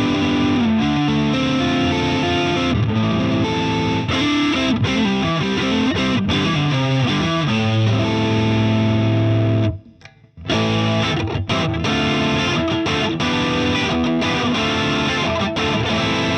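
Electric guitar played through a Boss IR-2 amp and cabinet simulator set to its heavily driven 'modded' amp preset: distorted riffs and held chords, with a short break about ten seconds in.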